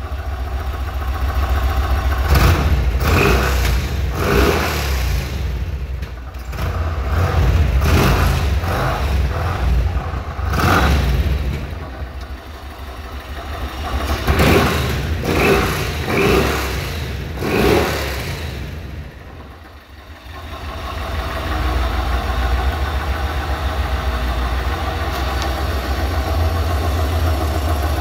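2007 Yamaha Road Star Warrior's 1670 cc air-cooled V-twin running through its stock exhaust, freshly brought back to life after years without running. It idles with a steady low rumble, is blipped several times in the first half, dips briefly, then settles into a steady idle.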